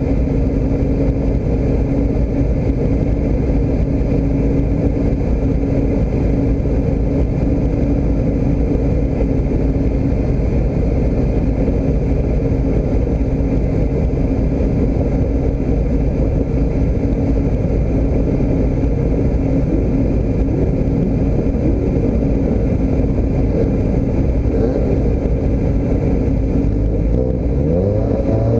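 Motor vehicle engine running steadily, with its pitch rising near the end as it revs up.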